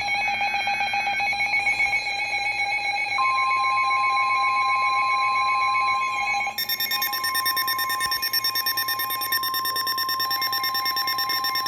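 Emergency alert tones: layered electronic alarm beeping with a rapid pulse, joined about three seconds in by a single long steady warning tone, the weather-radio alert tone that precedes a warning message. About halfway through, a further set of high beeping tones joins in.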